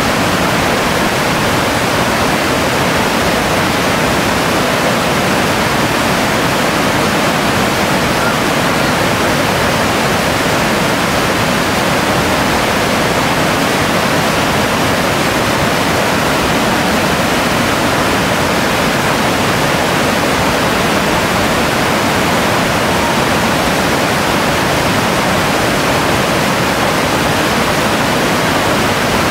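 River rapids rushing over rocks: whitewater making a loud, steady, unbroken rush.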